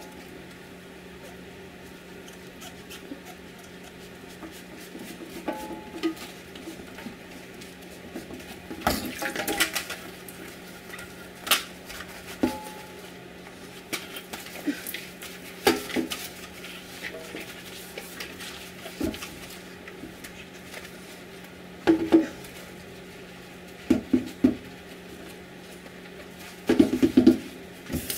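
Dishwashing in a stainless steel sink: an Instant Pot's silicone sealing ring and plastic lid are scrubbed with a soapy sponge, with scattered knocks and clatters of the lid against the sink.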